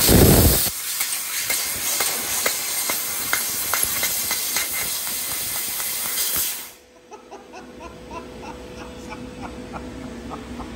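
CNC fiber laser cutting steel plate: a loud blast at the start, then the steady hiss of assist gas from the cutting nozzle with faint crackling. It cuts off about seven seconds in, leaving faint laughter in the background.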